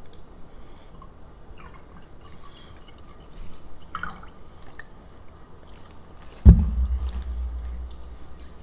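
Orange soda poured from a large plastic bottle into a cup, dripping and trickling quietly. About six and a half seconds in there is a sudden loud thump, followed by a low rumble for about two seconds.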